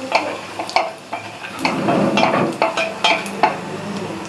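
Wooden spatula stirring and scraping in a small stainless steel pan, with irregular clinks, while cashews and raisins sizzle in ghee.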